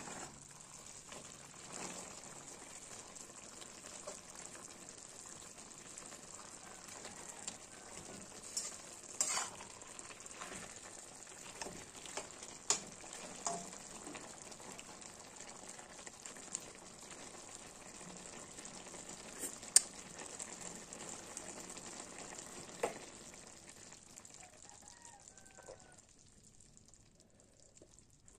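Pumpkin curry sizzling in an aluminium wok as it cooks down and thickens, stirred with a slotted metal spatula that clinks and scrapes against the pan several times, the sharpest clink about twenty seconds in. The sizzle dies away in the last few seconds.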